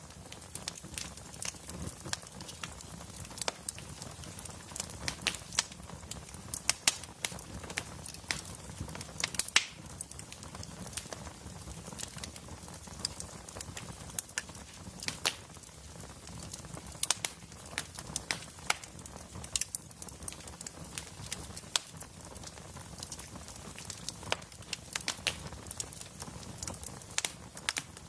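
Wood fire burning in a fireplace: a low steady hiss with frequent irregular crackles and pops from the logs.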